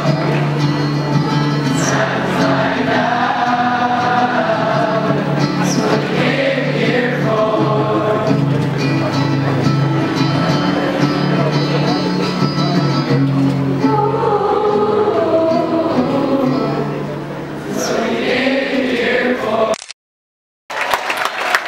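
A large school choir of graduates singing a slow song in sustained chords. The singing breaks off suddenly near the end.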